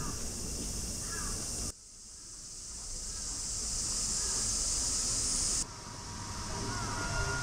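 Summer insects shrilling in a dense, steady high band over low background noise. The sound cuts off abruptly about two seconds in, swells back up over the next few seconds, and drops again near six seconds.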